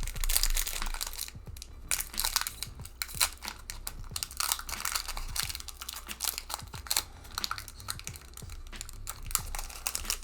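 Foil booster-pack wrapper crinkling and tearing as it is worked open by hand, a rapid, irregular run of crackles; the pack is hard to get open.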